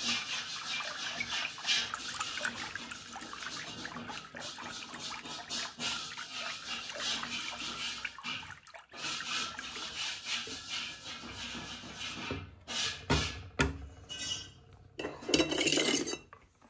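Wooden hand churner (mathani) twirled back and forth between the palms in a steel pot of thin curd batter, making a rapid swishing, sloshing sound. The churning stops about twelve seconds in, followed by a few knocks.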